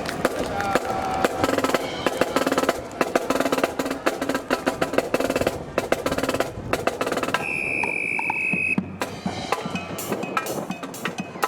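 Marching band percussion: snare drums playing a fast cadence of sharp strokes and rolls. Held low notes sound under the drums for most of the first half. A single steady high whistle tone lasts about a second and a half, about two-thirds of the way through.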